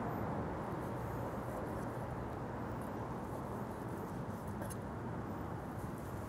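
Steady low room noise, with a few faint soft ticks from a knife and gloved hands carving a turkey breast on a wooden cutting board.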